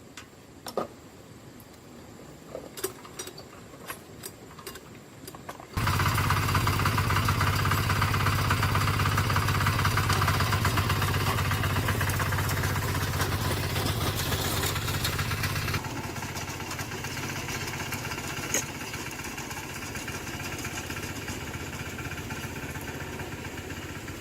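A few light clicks and knocks, then a tractor engine starts up abruptly about six seconds in and runs steadily, dropping to a lower level about ten seconds later.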